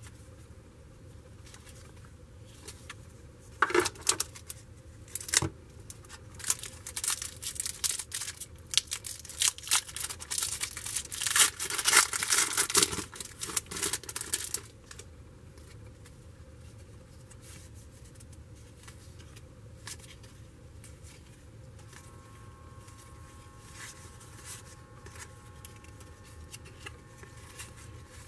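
A trading-card pack wrapper being torn open and crinkled in the hands: sharp tearing and crackling starting about four seconds in and stopping about fifteen seconds in, followed by quiet room tone.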